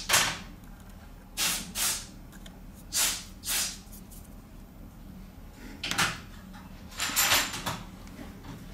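Several short scraping and rustling noises from smartphone parts being handled during reassembly, mostly in pairs less than a second apart, with a few seconds between groups.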